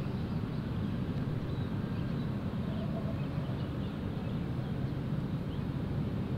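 Steady low outdoor rumble with faint short high chirps now and then.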